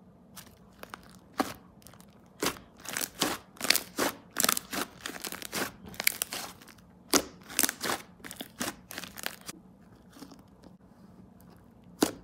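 Soft slime pressed, stretched and squished by hand, giving a quick run of sharp crackling air-bubble pops that thins out after about nine seconds, with one last loud pop near the end.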